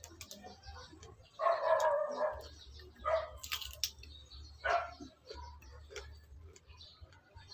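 A dog barking several times in the background, loudest about a second and a half in, with sharp crunches of bites into a raw cucumber.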